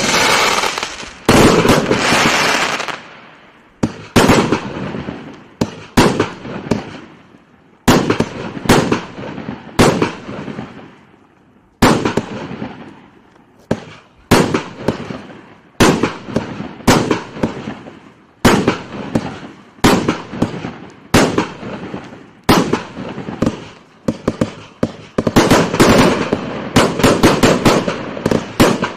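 Compact firework cake (King Fireworks 379 shots, 20, 25 and 30 mm tubes) firing: a steady succession of loud shots and aerial bursts, each bang dying away quickly, about one a second, quickening into a rapid volley near the end.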